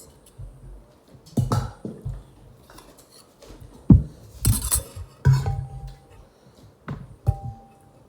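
A metal spoon knocking and scraping on plates and a pot as a second helping of rice is served, with several separate clinks, a few of them ringing briefly.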